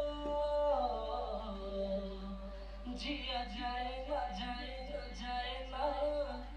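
A recorded solo singing voice playing back through a chain of studio effects (Auto-Tune, compressor, ping-pong delay and phaser), with held, wavering sung notes.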